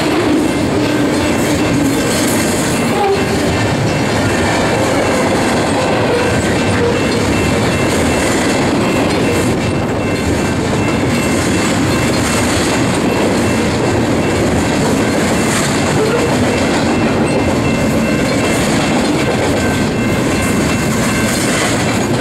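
Double-stack container well cars of a freight train rolling past, steel wheels on rail: a steady loud rumble and clatter, with a faint thin high ring over it.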